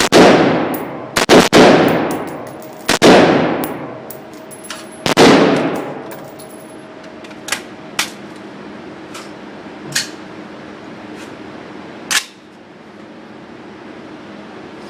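AR-style rifle firing at an indoor range: about six loud shots in the first five seconds or so, two of them in quick succession, each ringing on off the walls. After that, only a few fainter sharp cracks, a second or two apart.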